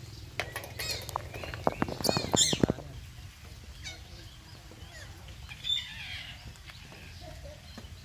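Red-breasted parakeets calling: a run of harsh, squawking calls with a few sharp clicks in the first three seconds, then quieter with a single call near six seconds, over a low steady hum.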